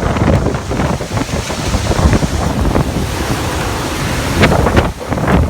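Typhoon-force wind blowing in strong gusts, with heavy wind buffeting on the microphone.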